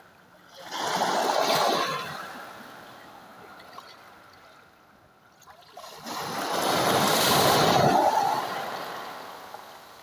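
Small sea waves breaking on a pebble beach and washing over the stones. They swell twice, about a second in and again from about six seconds, each fading away over a couple of seconds.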